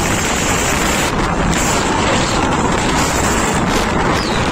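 Steady wind buffeting the microphone on a moving motorcycle, mixed with the motorcycle's running and road noise.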